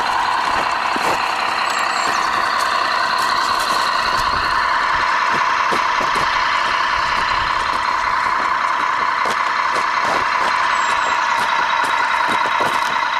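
Radio-controlled scale Peterbilt logging truck driving over a dirt track: a steady mechanical running sound from its drive, with scattered small clicks and crunches from the ground under the tyres.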